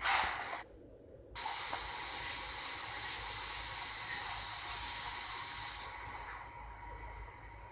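A steady hiss that starts abruptly about a second and a half in, runs evenly for about four and a half seconds and then drops away. It comes after a brief noisy burst at the very start.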